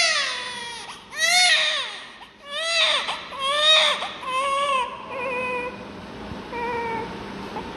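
Newborn baby crying in a run of short, high-pitched cries, which turn shorter and fainter after about five seconds and stop near the end.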